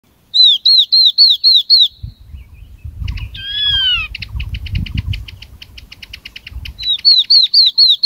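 Yellow-eyed babbler song played as a flock-calling lure: a run of clear, down-slurred whistled notes, about four a second. A falling note and a fast dry chattering rattle follow, with a low rumble underneath, and the whistled run starts again near the end.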